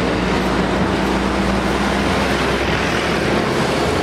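Heavy road traffic: container trucks and lorries driving past with a steady engine drone and tyre noise.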